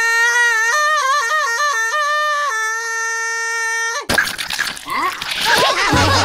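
A cartoon character's high voice holds one long sung note, wavering up and down in the middle, then breaks off about four seconds in with a sudden splattering burst as the green tomato splats. Short cartoon giggles follow near the end.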